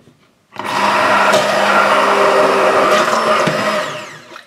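Immersion (stick) blender running in a steel pot of cooking raspberry jam, puréeing the fruit and chopping up the small seeds. It starts about half a second in, holds a steady motor hum and fades out near the end as it winds down.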